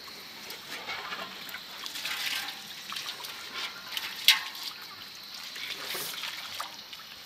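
Water poured from a metal pot over a dead chicken in a large aluminium basin, splashing and trickling into the water in the basin. A sharp knock a little past four seconds in is the loudest moment.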